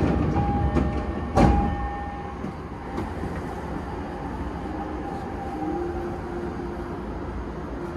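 An electric commuter train rolling past on the adjacent track, heard from inside a stopped train: steady rumble with a faint whine, and one loud clunk about a second and a half in.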